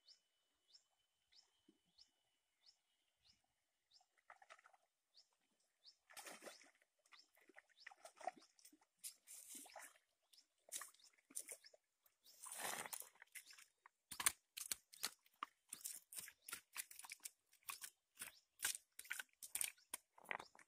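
Faint, regular chirping about every half second at first. From about six seconds in, the crunching and splashing of steps through shallow water on loose river stones takes over, growing denser and louder toward the end as the fish is brought to the shore.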